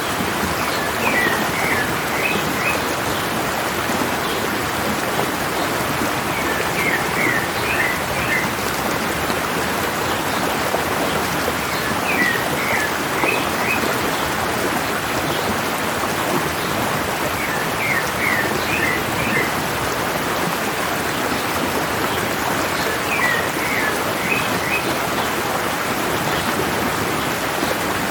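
Mountain stream running with a steady rushing of water, while a bird sings a short phrase of quick chirps that recurs about every five to six seconds.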